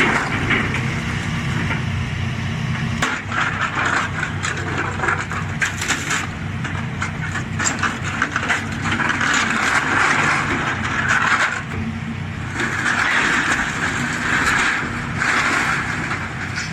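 Excavator engine running under load, with scraping, cracking and crushing of debris as the machine works. The engine's steady hum gives way about three seconds in to a denser run of scraping and cracking.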